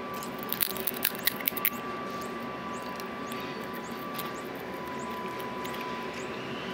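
Chewing a mouthful of crisp panipuri (golgappa) shell, with a cluster of sharp crunches in the first couple of seconds. Steady background noise with a faint steady tone runs underneath.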